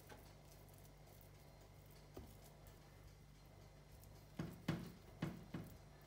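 Kitchen handling sounds from stuffing courgettes: a metal spoon pressing and patting sausage-meat stuffing into hollowed courgette halves in a glass baking dish. It gives four soft, dull knocks in quick succession about four seconds in. Otherwise near silence with a faint low hum.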